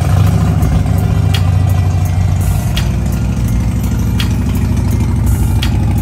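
Harley-Davidson V-twin motorcycle engine idling steadily.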